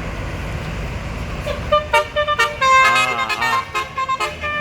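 Basuri-type multi-tone musical bus horn (telolet horn) playing a quick run of short toots and a warbling trill, starting about a second and a half in, over a low engine rumble.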